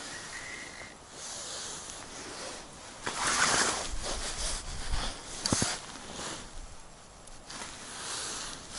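Rustling of a heavy winter suit and handling noises as an ice angler reaches into the hole and lifts out a small fish, with one sharp click a little past the middle.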